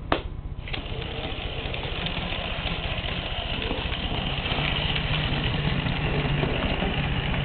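Hornby model Terrier locomotive's small electric motor whirring as it runs along the track, growing louder over the first few seconds and then holding steady, with a sharp click right at the start.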